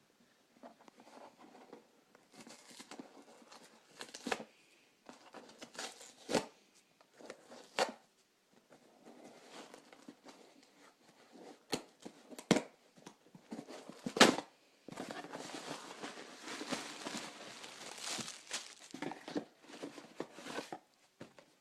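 Cardboard shipping box being torn open and its packaging crinkled and rustled by hand, with scattered sharp clicks and knocks, the loudest about fourteen seconds in, and a long stretch of steady rustling near the end.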